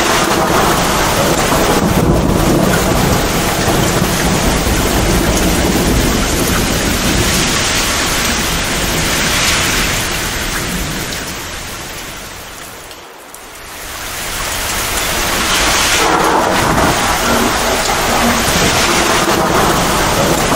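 Torrential rain pouring steadily, with thunder rumbling underneath. A little past the middle the whole sound fades down for a few seconds, then swells back.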